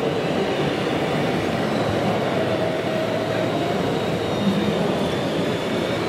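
Steady running noise of 1:16 scale RC construction models' electric motors and hydraulics, with a faint wavering whine in the middle, over a constant background hum.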